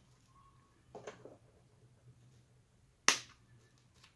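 Quiet handling of rolled paper weaving tubes, with a soft knock about a second in and one sharp click about three seconds in.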